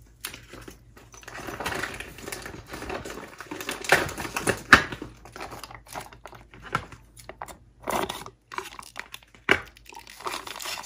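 Plastic barbecue-sauce pouch crinkling as it is handled and squeezed, with a few sharp clicks.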